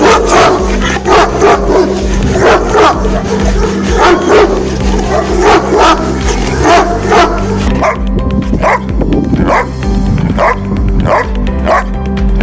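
A Bully Kutta barking over and over, over steady background music. About eight seconds in, the barking changes to another recording.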